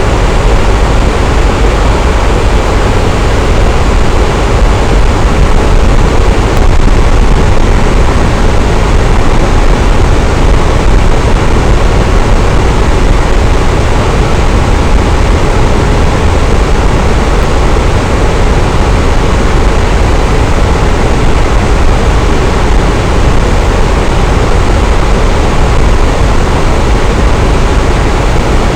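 Electric fan running steadily: a constant whooshing rush of moving air with a low rumble and a faint steady hum.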